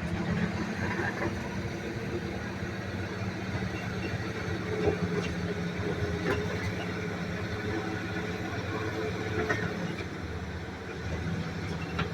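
Excavator's diesel engine running steadily at a constant speed, with a few short knocks and clanks scattered through.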